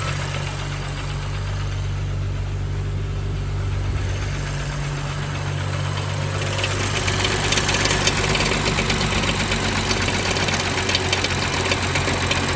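BMW engine idling with a fast metallic ticking rattle over the steady hum; the rattle gets louder about halfway through. The noise is suspected to come from the timing chain.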